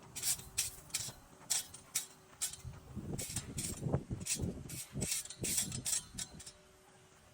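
A run of short, sharp clicks and rattles, about a dozen over several seconds, with a few low thuds in the middle: things being handled and set in place.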